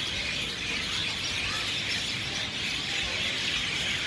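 A large flock of small birds chirping and chattering all at once, a dense, steady din of overlapping calls.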